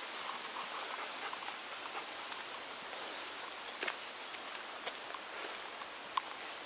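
Wind in trees and bushes giving a steady rushing hiss, with a few faint short high chirps and a couple of sharp clicks near the end.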